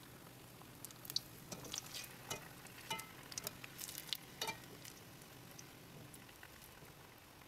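Aloo bondas deep-frying in hot coconut oil: a faint steady sizzle. Sharp crackles and clicks are busiest in the first half, as a wire skimmer turns the fritters in the steel pan.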